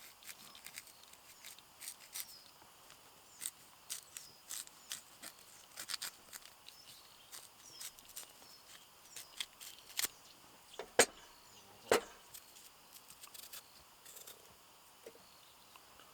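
Scattered small clicks and snaps at an irregular pace, with two louder sharp snaps about eleven and twelve seconds in.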